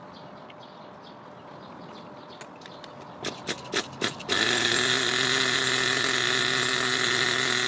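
O.S. two-stroke glow-fuel (nitro) engine in an HPI RC monster truck being started: a few short sharp bursts a little over three seconds in, then about four seconds in it catches and settles into a steady, even idle.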